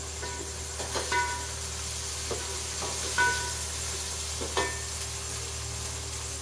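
Onions and ginger-garlic paste sizzling in hot oil in a cooking pot while being stirred, with a metal spoon clinking against the pot several times.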